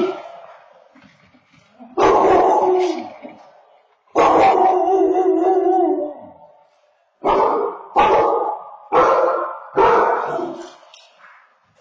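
A dog howling and barking: two long, wavering howls of about two seconds each, then four short barks close together.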